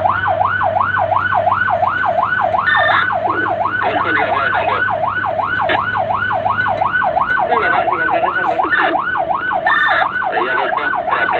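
Fire engine's electronic siren on a fast yelp, its pitch rising and falling about three times a second, over the steady drone of the truck's engine.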